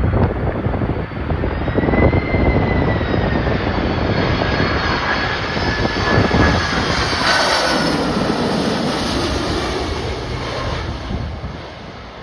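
Jet airliner's engines passing low, a fan whine slowly falling in pitch over a rising and fading roar, loudest about two-thirds of the way through. Strong wind buffets the microphone underneath.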